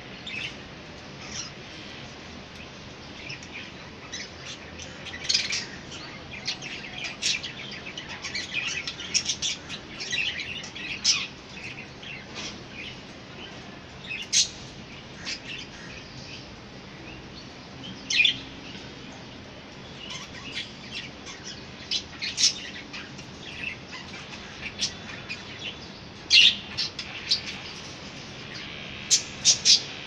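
Pet budgerigars chirping and twittering: many short, high chirps, busiest in the first third, with a few louder single calls spread through the rest.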